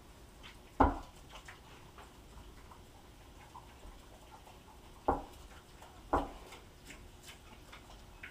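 Pigs feeding at bowls on the floor: soft clicks and smacking from eating, with three louder knocks, one about a second in and two more a second apart past the middle.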